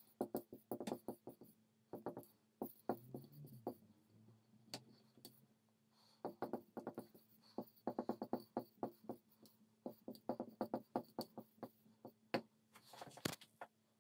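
Dry-erase marker writing on a whiteboard: quick, irregular clusters of short squeaky strokes and taps as the letters are written, with pauses between words.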